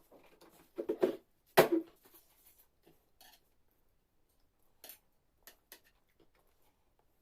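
Close-up eating sounds: a burst of loud bites and mouth noises about a second in, then a few short, fainter clicks later on.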